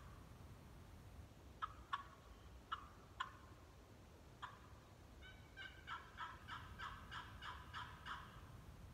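Zink Wicked Series box call played as a turkey call: a few single sharp clucks, then a run of about a dozen hen yelps at roughly four a second.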